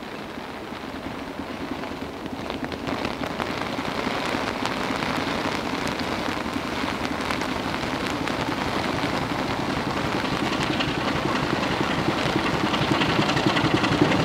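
Diesel locomotive approaching, its engine growing steadily louder.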